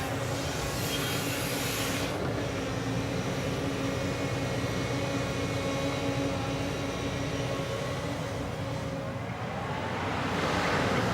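JCB excavator's diesel engine running steadily while it works, with a hiss in the first couple of seconds; about nine seconds in, the pitch rises and it grows louder as the engine revs up.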